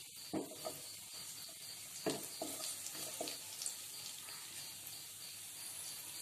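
Vadagam frying in hot oil in a kadai: a steady sizzle, with a few brief louder pops in the first half.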